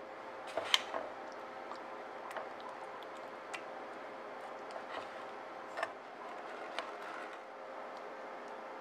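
A metal ladle scooping thick blueberry pie filling over an oatmeal crumble base in a metal baking pan: soft squishing of the filling, with light clinks and taps of the ladle against the pan every second or so, the sharpest just under a second in. Near the end a spatula spreads the filling.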